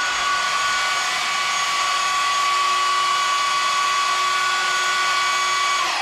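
Bauer cordless belt sander running with a steady whine, then switched off near the end, its pitch falling as the motor winds down.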